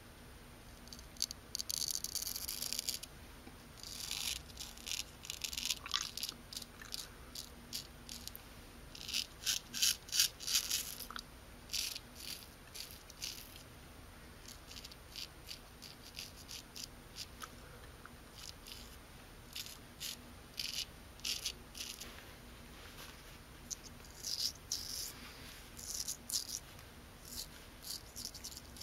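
Straight razor blade scraping through lather and stubble in groups of short strokes, a quick crackling rasp with brief pauses between passes.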